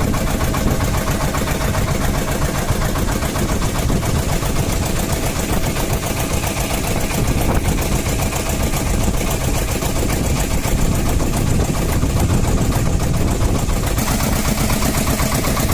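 Small boat's engine running steadily under way, a loud, fast, even pulsing with rushing noise over it.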